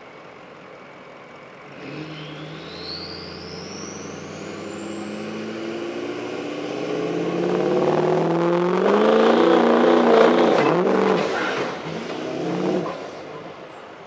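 2003 Ford F-350's 6.0 L Power Stroke V8 turbodiesel working under load on a pull, with a loud turbo whistle that climbs steadily in pitch as the engine revs build. The engine is loudest past the middle, dips and picks up again briefly, then drops off near the end.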